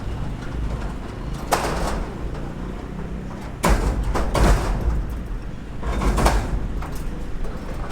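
Three loud scraping knocks, about two seconds apart, over a steady low rumble.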